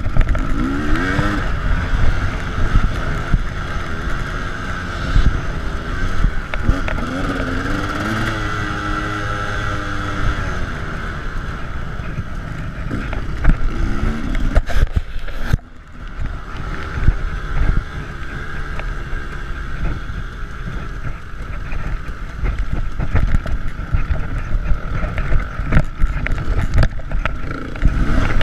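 KTM 300 EXC two-stroke dirt bike engine being ridden hard, its pitch rising and falling with the throttle. About halfway through the sound drops away for a moment before it picks up again.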